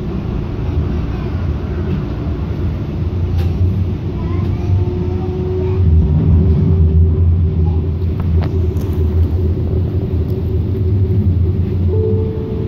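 Light rail train running, heard from inside the passenger car: a steady low rumble of wheels on the track that grows louder about halfway through.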